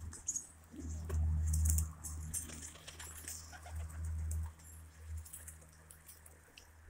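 A flock of domestic pigeons on the loft roof: low cooing with scattered light clicks and a brief wing flutter.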